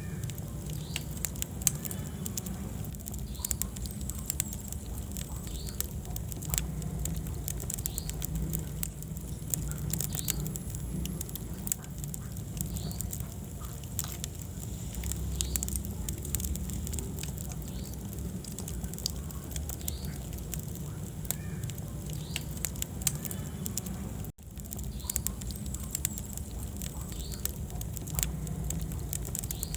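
Wood fire crackling and popping in a fireplace, irregular sharp snaps over a steady low rumble of the flames. The sound drops out for an instant about 24 seconds in.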